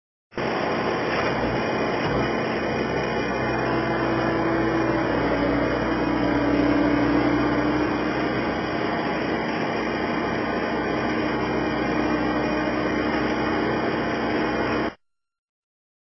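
Skid steer engine running steadily, with a tone that drops slightly about five seconds in; the sound starts and cuts off abruptly.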